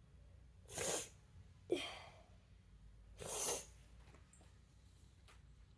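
A person's sharp breaths or sniffs close to the microphone, three short ones, with a few faint clicks later on.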